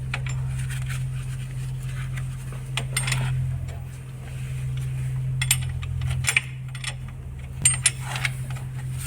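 Sharp metallic clinks of a spanner and nut on the isolator switch's positive terminal as a spring washer is fitted and tightened, a few separate clicks with two close together near the end. A steady low hum runs underneath.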